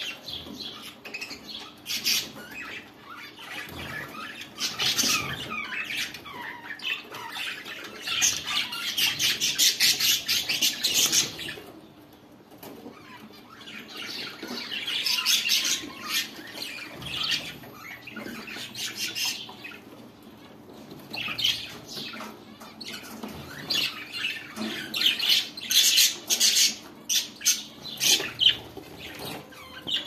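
A group of budgerigars chattering and squawking, in loud spells of fast, busy chatter with quieter gaps between.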